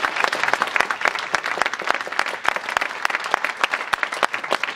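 Audience applauding, a dense patter of hand claps that gradually thins out and quietens.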